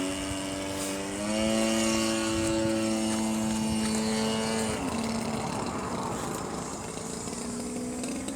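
Radio-controlled model aeroplane's motor and propeller droning overhead, holding a steady pitch that steps up about a second in, drops near the five-second mark and climbs again near the end as the throttle changes.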